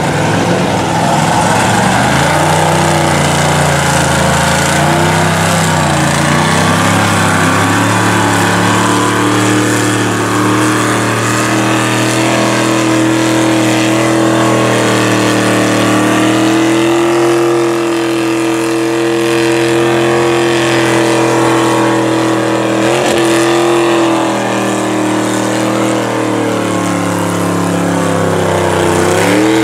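Lifted Jeep Wrangler mud truck's engine working hard through deep mud, revving up and down, then holding a steady high rev for several seconds before dropping and blipping again near the end.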